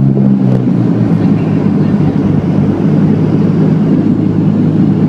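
Steady engine drone and rushing noise heard from inside a moving vehicle, with a low pitched hum that drops in pitch about half a second in and then holds steady.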